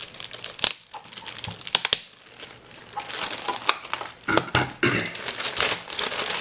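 Plastic wrapping crinkling as it is pulled off a soldering station's base unit, with several sharp clicks and knocks as the unit is handled. A quieter stretch comes about two seconds in.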